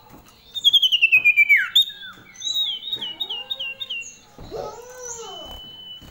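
Female common iora calling: a fast run of high notes falling in pitch about a second in, the loudest part, then about five quick repeated chirps and a held whistle near the end. A lower rising-and-falling sound comes about four and a half seconds in.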